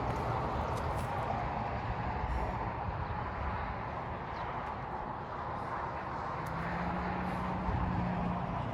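Strong storm wind blowing, a steady low rush with no break, and a faint steady hum near the end.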